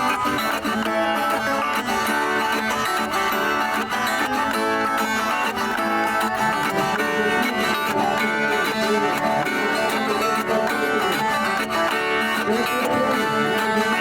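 Viola caipira playing an instrumental sertanejo raiz tune, a quick run of plucked notes with a steady rhythm and no singing.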